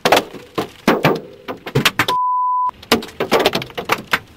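Large hailstones, close to baseball size, pounding the vehicle's body and roof in rapid, irregular knocks. About two seconds in, a half-second beep tone sounds while all other sound cuts out.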